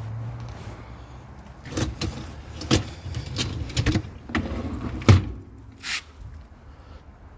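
A Bosch built-in dishwasher being handled: a run of about nine knocks and rattles over some four seconds, the loudest a little after five seconds in.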